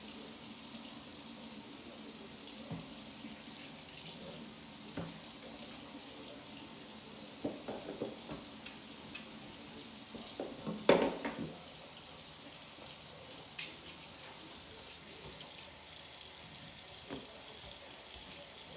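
Kitchen faucet running steadily into the sink as dishes are washed, with scattered clinks of dishes and one sharp clatter near the middle.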